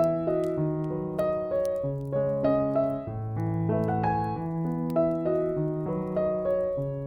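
Slow, gentle piano music: single notes and chords changing about every half second to a second over sustained low bass notes.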